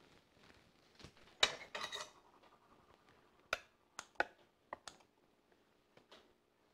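Scattered light knocks and clicks of a baking pan as hands press and stretch pizza dough in it, about eight in all, the loudest about a second and a half in.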